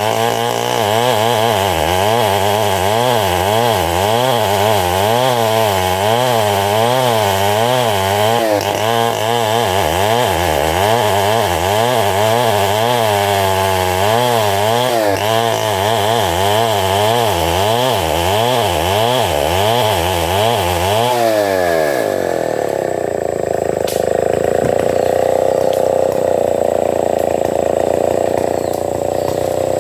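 Engine-driven homemade sawing machine running at a steady loudness, its engine speed wavering up and down in a regular cycle. About two-thirds of the way through the pitch drops away and the sound changes to a smoother, higher hum.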